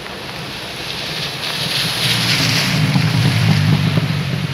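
Heavy rain, with a pickup truck driving past close by. Its tyres hiss through the water on the street and a low rumble swells from about a second in, loudest between two and four seconds.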